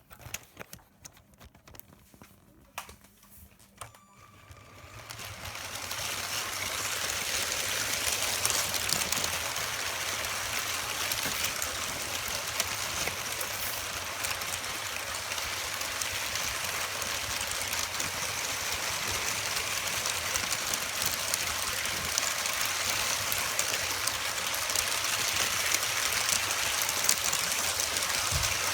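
Motorised brick-built toy train (Kazi clone of the Lego Horizon Express) running on plastic track, its small electric motor and gears making a steady whirring hiss over a low hum. A few faint clicks come first, then it starts up about five seconds in.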